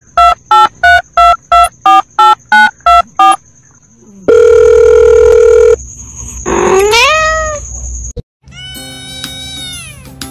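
A quick run of about nine short beeps, then a loud steady tone held for about a second and a half. A cat's meow follows, rising and then falling in pitch. After a brief break, a white kitten meows near the end.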